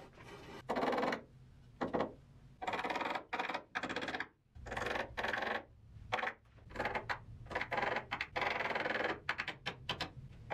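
Large shiny plastic sheet crinkling and rustling as it is handled and hung, in irregular bursts of crackle that come and go every second or so.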